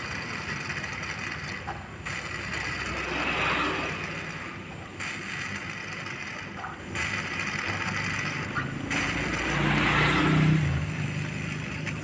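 Refrigerator compressor running and drawing oil from a bottle in through the copper service pipe, with a hiss that swells twice. The oil is being added before the evaporator, clogged with trapped oil, is flushed with LPG.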